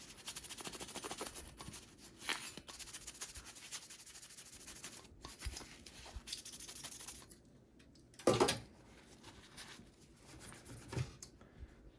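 Paper towel dampened with rubbing alcohol being rubbed quickly back and forth to wipe off old thermal paste. The rubbing stops about seven seconds in, followed by a single thump and a lighter knock near the end.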